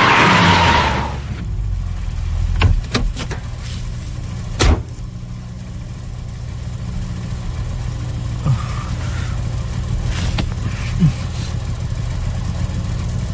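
A loud rushing whoosh in the first second, then a car engine running steadily as a low hum, with a few sharp clicks and a single thump about five seconds in.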